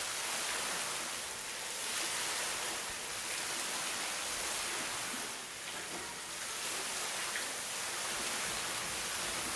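Flowing water rushing steadily, a bright hiss with gentle swells and lulls every couple of seconds.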